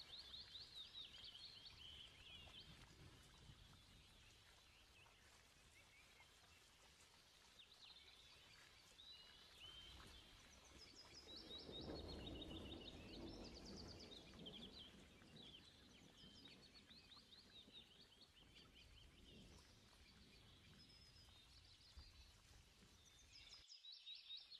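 Faint birdsong: quick chirps and short trills, coming and going, over a low background hum that swells briefly about halfway through.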